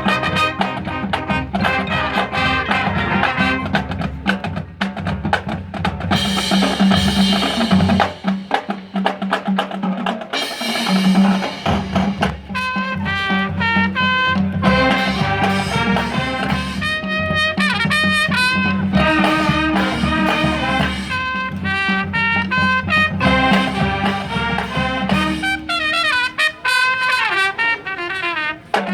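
High school marching band playing its field show: brass with trumpets on top, over marching percussion.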